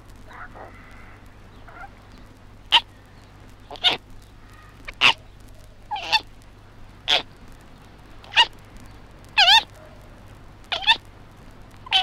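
Baby koala, about six months old, calling: a run of short, sharp cries about one a second, faint for the first two seconds and then loud.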